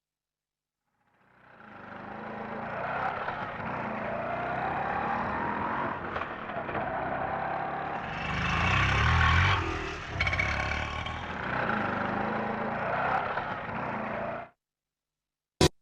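CNG autorickshaw engine running, fading in after a moment of silence and rising in revs around the middle, then cutting off abruptly; a short click follows near the end.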